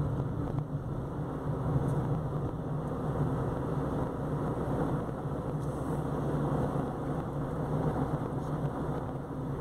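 Steady engine and tyre noise of a car driving along a paved road, heard from inside the cabin.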